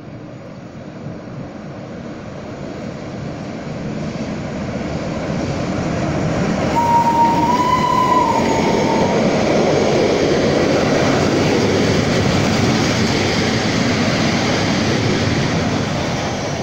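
Rhaetian Railway Ge 6/6 I 'Crocodile' electric locomotive and its freight wagons rumbling past. The sound grows steadily louder as the train approaches, then stays loud as the wagons roll by. About seven seconds in, a steady high tone sounds for about two seconds.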